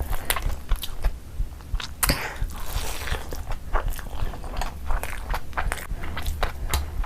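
Close-up eating sounds: a person biting and chewing food, with many short wet mouth clicks and a longer rustling, smacking stretch about two seconds in.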